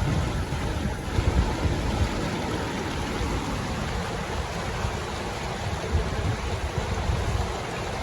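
River rapids rushing in a steady, even roar, with wind buffeting the microphone in a low, gusty rumble.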